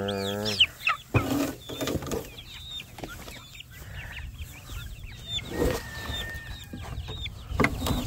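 Young poultry chicks peeping in many short, high chirps, with a longer thin peep partway through. A low held sound trails off just after the start, and a few thumps and rustles of handling in the grass come in between.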